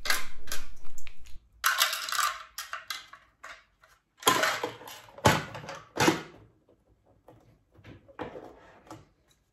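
A hard plastic accessory tray and the small sewing tools in it rattling and knocking as they are handled, then the tray being fitted onto the sewing machine's free arm. The clatter comes in several short bursts, loudest in the middle and fading to a few faint knocks near the end.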